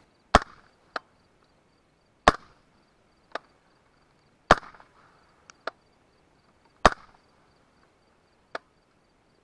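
Four suppressed 5.56 rifle shots through an AB Suppressors Raptor suppressor with its flash-suppressing end cap, each a sharp crack about two seconds apart. Fainter clicks fall between the shots.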